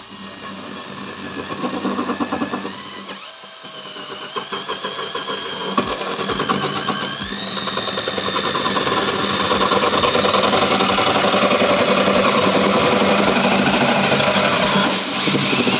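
Cordless drill driving a large hole saw through a wall, the motor whine rising in pitch in steps and then holding steady under a grinding cutting noise. It is loudest in the second half and drops off near the end as the drill stops.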